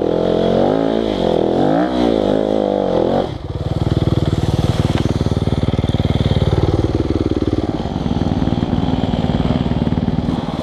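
Yamaha YZ250FX's 250cc four-stroke single-cylinder engine revving up and down under throttle. About three seconds in it drops sharply to a steady, lower-speed run with distinct rapid firing pulses.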